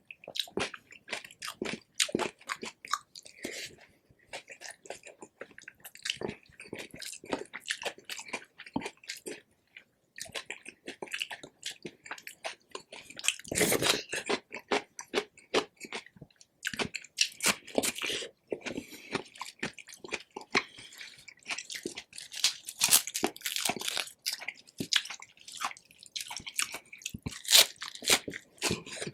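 Close-miked chewing of crispy pork belly crackling: dense, sharp crunches that go on, with a brief pause about ten seconds in and a loud crunchy bite a few seconds later.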